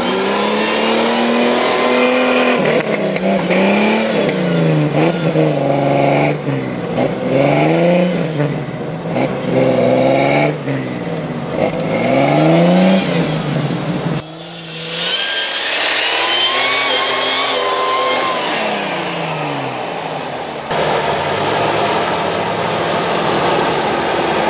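A Jeep Cherokee's engine revved in repeated surges, its pitch climbing and falling about every second and a half, then one longer rise and fall, and running steadier near the end. The Jeep is stuck in deep snow and is being driven hard to try to break free.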